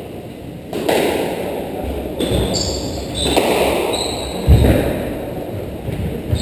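Squash rally: the ball struck by rackets and hitting the court walls and floor in a series of sharp thuds, the loudest about four and a half seconds in. Short high squeaks come in the middle, typical of court shoes on the wooden floor.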